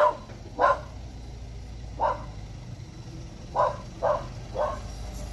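A dog barking six times: two barks close together at the start, one about two seconds in, then three in quick succession near the end.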